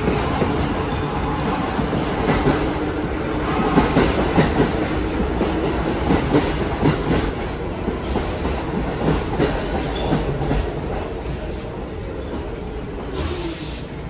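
Vintage BMT Standard subway train pulling away along the track, its wheels clacking over rail joints, the sound fading as it recedes. A burst of hiss near the end.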